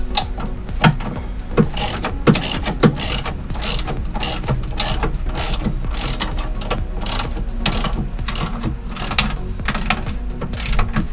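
Ratcheting ring-end wrench tightening a bolt, its pawl clicking in a long series of quick back-and-forth strokes.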